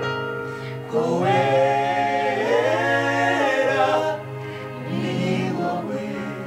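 A choir singing a gospel worship song over steady held low notes. The voices swell louder about a second in and ease back after about four seconds.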